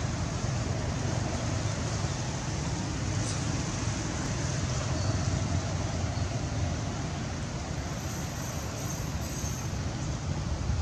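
Steady outdoor background noise: a low rumble under an even hiss.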